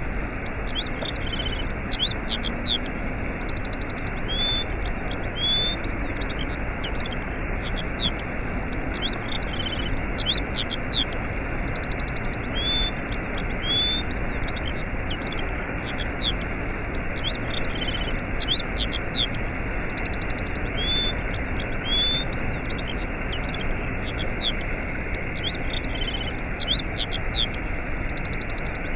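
Steady rushing waterfall with songbirds chirping over it. The same mix of quick chirps, rising whistles and a short trill comes round again about every eight seconds.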